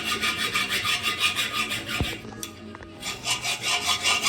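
Hand file rasping on metal in rapid back-and-forth strokes, about five a second, with a short pause about two seconds in.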